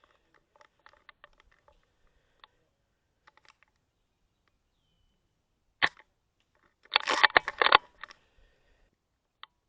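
Airsoft gun firing: a single sharp shot about six seconds in, then a quick string of shots about a second later, with faint clicks before and a single click near the end.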